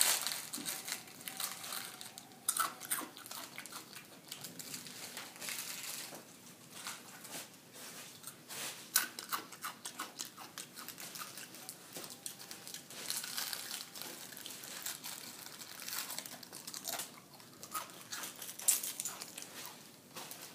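Potato chips being crushed and crumbled by hand: a run of irregular crunches and crinkles, with a few sharper cracks.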